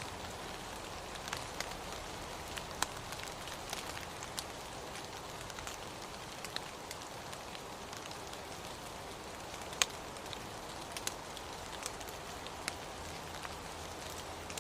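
Steady rain falling, with scattered individual drops ticking sharply on nearby surfaces; one drop a little past the middle is the loudest.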